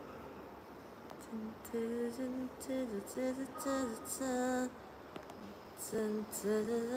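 A woman's voice softly singing a short tune with held notes that step up and down, in two phrases, the second starting about six seconds in.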